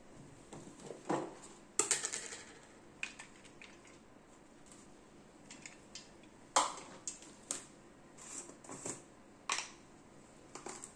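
Irregular clinks and taps on a stainless steel bowl as chopped onion is dropped and pushed into it with the hand, the loudest knocks a little under 2 s in, about halfway through and near the end.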